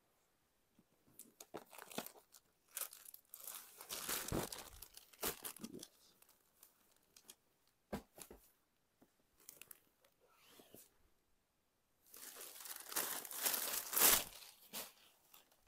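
Rustling and crinkling of heavy gota patti work sarees being handled and unfolded, in two stretches: about three seconds in and again near the end, with small scattered crackles between.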